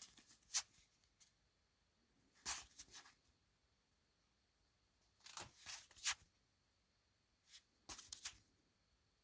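Cardstock game cards being handled and turned over, in four short bursts of rustling and light taps with near-silence between.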